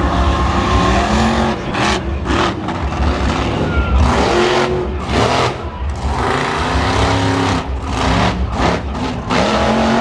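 Devastator monster truck's supercharged V8 revving hard again and again, its pitch rising and falling over a heavy low rumble.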